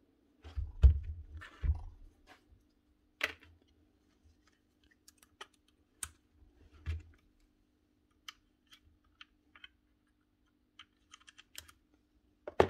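Hands handling a rotary hammer's plastic motor housing and small metal parts on a workbench. There are a few low thuds in the first two seconds, then scattered light clicks and taps as a screwdriver works at the carbon brush holder, and a sharper knock near the end, over a faint steady hum.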